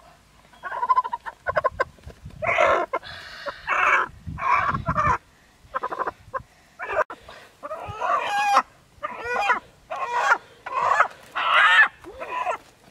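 White hen calling over and over in short loud clucks and squawks while held down by hand.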